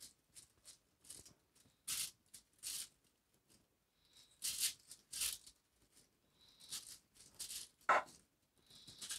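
Kitchen knife scoring a whole carp through its scales and skin: a dozen or so short, faint scrapes at irregular intervals, one per stroke, with a louder, fuller one about eight seconds in.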